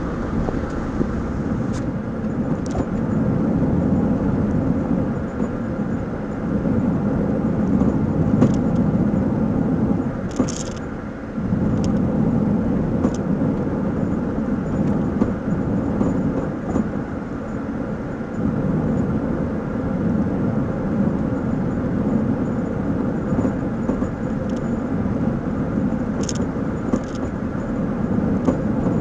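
Car driving with a steady rumble of road noise. A few short sharp knocks come through now and then, the abnormal noise that the owner puts down to the coilovers, the height-adjustable aftermarket suspension.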